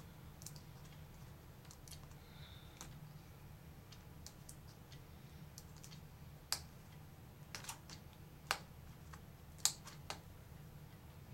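Faint, scattered small clicks and crackles of fingers peeling a thin plastic film off the back of a laptop LCD panel by its cable connector, with a few sharper clicks past the middle. A low steady hum runs underneath.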